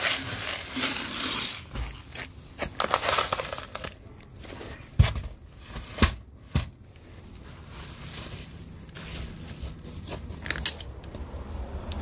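Dry cat kibble poured from a plastic jar into a plastic tray, a dense rattling rush for the first few seconds. Then three sharp knocks as the tray is handled and set in place.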